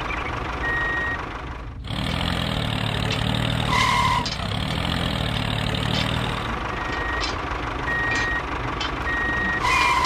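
Model tractor engine running steadily with a low hum, its deeper note strongest from about two seconds in until past six seconds. Short high beeps sound several times, mostly in the second half.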